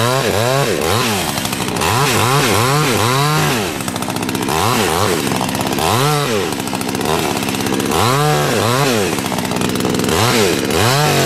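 Petrol chainsaw cutting into thick ice, its engine revving up and dropping back again and again as the bar bites into the cut.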